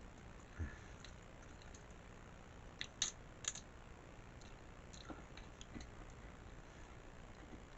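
A person eating Jonah crab: quiet chewing with a few sharp clicks scattered through, the loudest pair about three seconds in.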